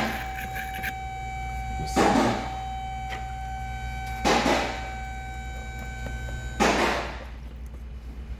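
A toothbrush scrubbing the inside of a corroded car battery terminal clamp in short, separate strokes, about one every two seconds, with a steady hum underneath.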